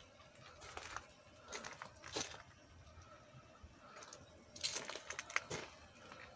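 Faint, irregular crunching and rustling noises, a few scattered crackles, then a denser cluster of sharper ones about five seconds in.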